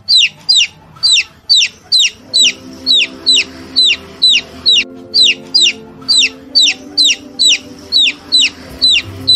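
Baby chick peeping: short, high peeps that slide sharply down in pitch, about two a second, over soft background music that comes in about two seconds in.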